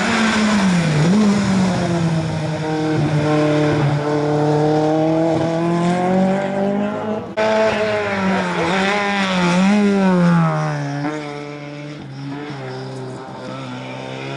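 Rally car engines revving hard through a corner, the pitch climbing and dipping with throttle lifts and gear changes. An abrupt cut about seven seconds in switches to another car.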